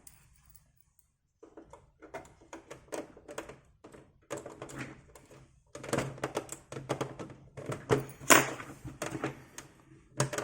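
Irregular clicks, taps and scrapes of a screwdriver working at the plastic expansion-slot cover on the end of an Amiga 500 case, with one sharper knock late on.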